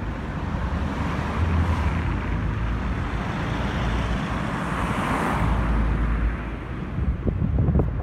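Road traffic: a car passes close by, its noise swelling and fading about halfway through.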